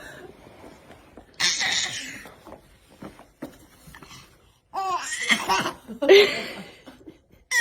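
A baby laughing in loud bursts: one short fit about a second and a half in, then a longer, louder fit of belly laughs from about five seconds in.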